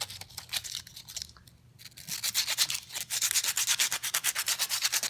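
Small cut-out wooden letter sanded by hand, rubbed back and forth on sandpaper. A few scattered strokes come first, then from about two seconds in a quick, steady rhythm of about five to six strokes a second.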